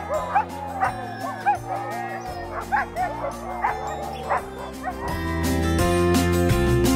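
Several sled dogs (Alaskan huskies) yipping and barking excitedly over background music. After about five seconds the yips fade and the music grows louder.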